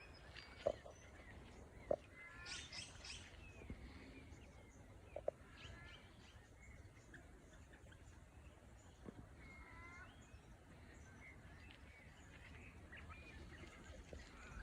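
Faint bird calls in open bush, with clusters of calls a couple of seconds in and again near the middle. Three brief sharp pops early on stand out as the loudest sounds.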